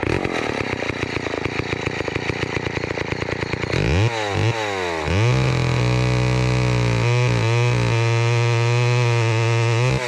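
Lombard AL42 chainsaw's two-stroke engine running at idle with a rapid even beat. About four seconds in it is revved twice, then held at high revs with a couple of brief dips. It runs on its own without a carb kit.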